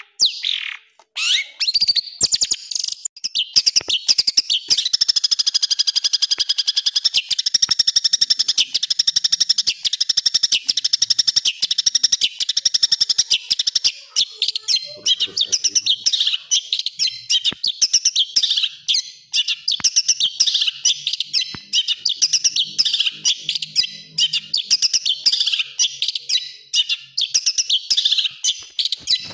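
Long-tailed shrike (cendet) singing a fast, nearly unbroken stream of harsh, quick-fire chattering notes and short sweeping trills, after a brief pause near the start.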